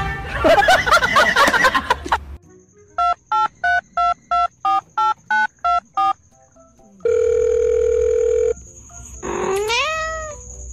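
A loud wavering pitched sound, then a quick run of about ten short electronic beeps, about three a second. These are followed by a steady electronic tone about a second and a half long, and near the end a pitched call that rises and then levels off.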